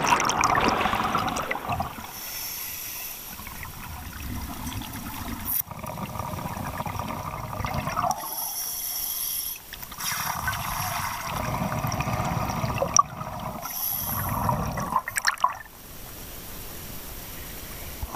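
Scuba diver breathing through a regulator underwater: a hiss on each inhale, then a low rumble of exhaled bubbles, about three breaths spaced some five to six seconds apart.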